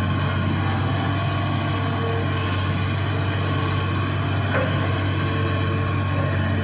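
Hitachi excavator's diesel engine running steadily, a constant low drone.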